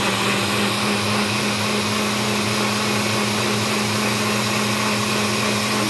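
NutriBullet blender running steadily on its low setting, blending strawberries in juice: a constant motor hum under a loud, even whir.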